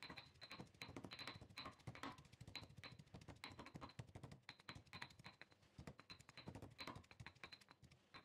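Stone pestle pounding garlic, ginger and lemongrass into a paste in a stone mortar: a steady string of faint taps, about two or three a second.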